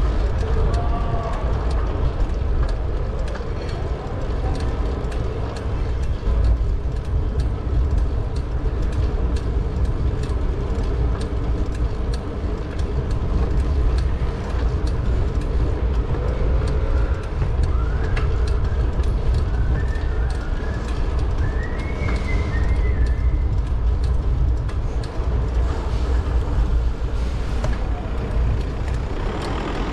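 Steady low rumble of wind and road noise on an action camera riding on a moving bicycle, with many small clicks throughout and a few faint higher-pitched chirps past the middle.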